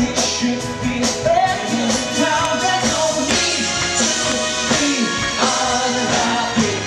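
Upbeat stage-show song: singing over a band with a steady beat.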